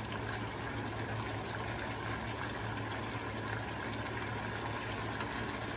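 Chicken pieces frying in hot oil in a pan, a steady sizzle.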